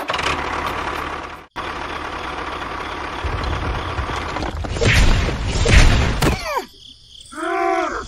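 Tractor engine running with a low rumble that grows louder in the middle, then a short, wavering pitched sound near the end.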